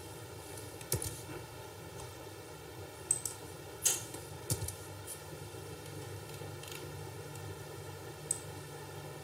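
A few short, sharp clicks of a computer mouse and keyboard, scattered over a steady low background hum, the loudest about four seconds in.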